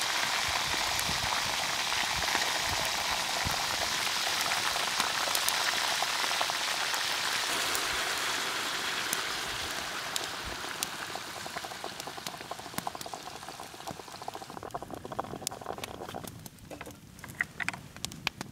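Beef ribs and heated stones sizzling loudly in a hot metal pot, a dense steady hiss that gradually dies down and, near the end, breaks up into scattered crackles and pops.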